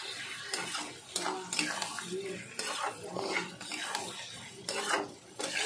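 Metal spatula stirring and scraping in a kadai, turning chunks of potato, pointed gourd and prawns through a thick masala, with irregular scrapes and knocks against the pan. The curry is being fried down (kasha) after the prawns went in.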